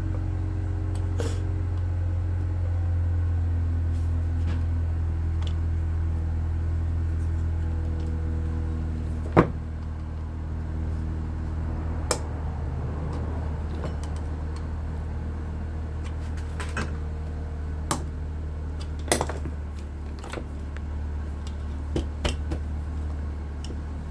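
Sharp metal clicks and knocks, about nine of them spread out, the loudest about nine seconds in, as a tool pries at the fan motor's end housing to separate it from the stator. A steady low hum sounds throughout.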